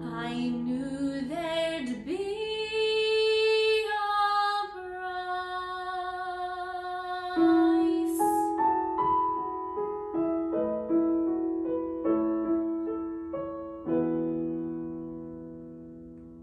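A woman's voice singing a slow musical-theatre ballad with piano accompaniment, gliding between notes and holding long ones. Near the end the last piano chord rings and slowly fades away.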